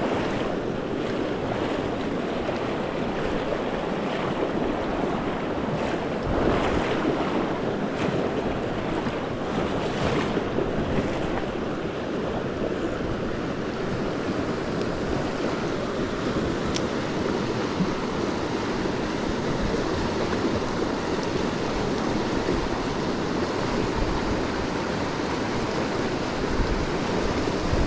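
Small stream running fast and high with snowmelt: a steady rush of water.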